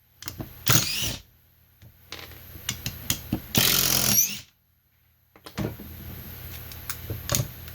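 Cordless DeWalt impact driver driving a screw into wood in short bursts, its motor whining up each time, with small clicks and handling noise between the bursts.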